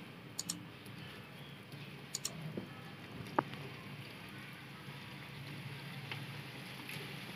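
Hot oil sizzling in a kadai as clumps of onion pakoda batter are dropped in to deep-fry, with a few sharp crackles.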